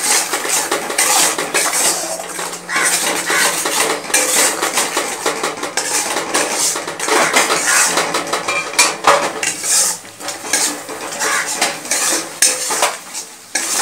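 A metal spatula scrapes and stirs a thick mustard and poppy-seed spice paste around a metal kadai, in many quick metal-on-metal scrapes, as the paste is fried down.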